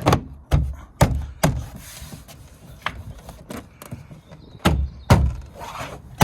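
Irregular thumps and knocks, about ten of them, some in quick pairs, as a hand works around a car door's interior trim panel to knock it into place against the door.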